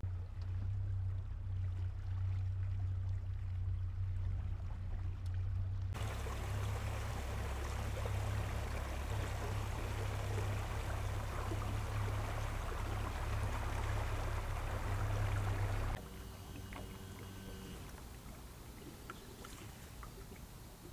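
A boat's motor runs with a steady low hum. About six seconds in, a rushing hiss of water and wind joins it. Both cut off sharply about sixteen seconds in, leaving only faint background noise.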